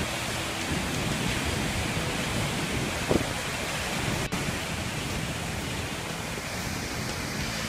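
A large waterfall, its wide, heavy flow of water falling over a rock ledge in a steady rushing, with a short louder sound about three seconds in.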